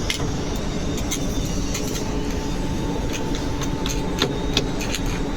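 Electric arc welding on a capping pass: irregular sharp crackles and pops from the arc over a steady machine hum.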